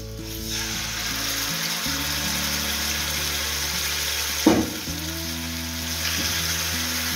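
Marinated chicken breasts sizzling in hot oil in a nonstick frying pan, the sizzle starting as the first piece goes in. A short loud thump comes about halfway through, as the second piece is laid in the pan.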